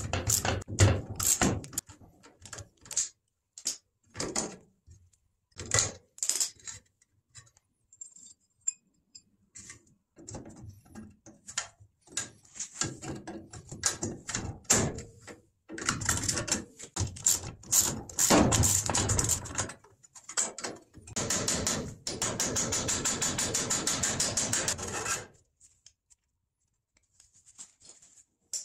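Hand tools on rusty steel: a socket ratchet clicking as bolts are backed out of the lawn cart's frame, with scattered metallic clicks and taps. About two-thirds of the way through comes a run of rapid, even ratchet clicks lasting a few seconds.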